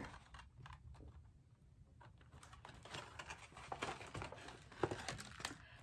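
Faint rustling and light taps of a large picture book's pages being handled and turned.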